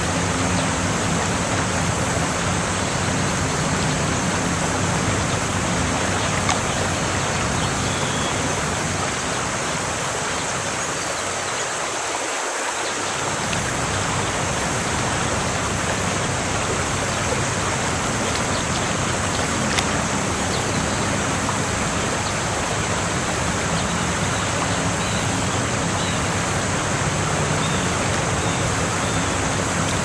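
Waterfall: a steady rush of falling water. Its low rumble briefly thins out about twelve seconds in.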